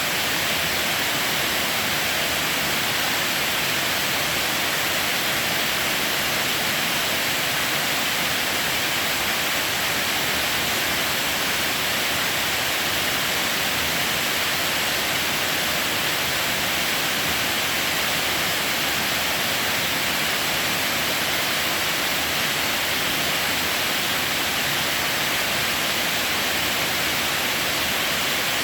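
Waterfall with water rushing steadily, an even, unbroken wash of falling-water noise.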